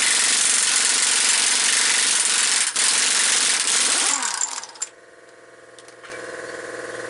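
Pneumatic impact wrench hammering continuously for about four seconds, with one brief break, then spinning down with a falling whine as the trigger is let go. About six seconds in, a steady motor hum starts.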